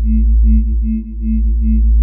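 Electronic music: a deep, sustained sub-bass that dips and swells about every second and a half, under steady droning synth tones that pulse a few times a second, with a faint high tone on top.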